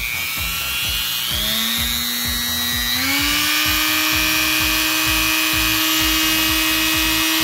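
Small high-speed rotary tool (mini drill) running: its motor whine starts about a second in, steps up in speed about three seconds in, then holds a steady high pitch.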